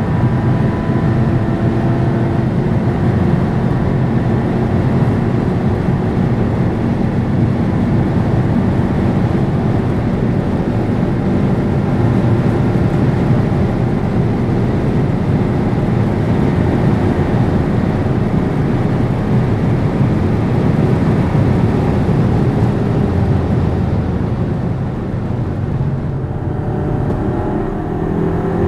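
Skoda Superb 4x4 at high speed: steady engine, tyre and wind noise. Near the end the sound eases slightly, then the engine note climbs again as the car accelerates.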